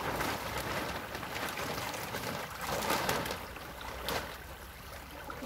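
Shallow creek water running and trickling around a makeshift dam of stones and plastic sheeting, with a few brief splashes about three and four seconds in.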